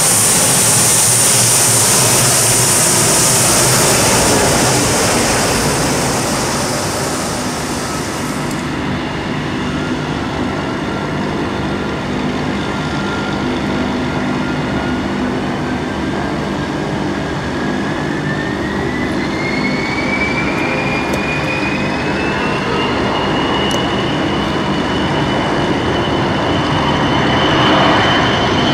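Gulfstream business jet's twin Rolls-Royce BR710 turbofans running as it taxis, a steady jet rush with a whine; a bright high hiss cuts off abruptly about nine seconds in. From about halfway through, the whine rises steadily in pitch and levels off near the end as the engines spool up on the runway for takeoff.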